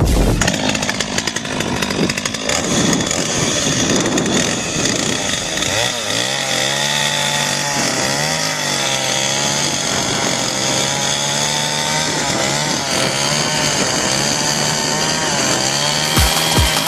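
Chainsaw engine running, uneven for the first few seconds, then holding a steady high speed whose pitch wavers slightly up and down.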